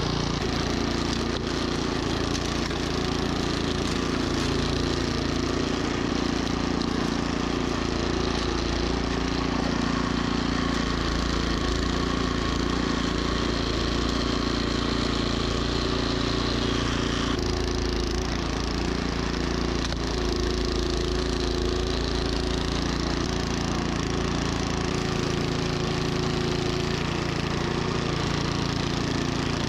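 Troy-Bilt gas snowblower's single-cylinder engine running steadily under load, with a constant coarse rushing and crunching from the auger churning and throwing snow. The engine note shifts slightly about seventeen seconds in.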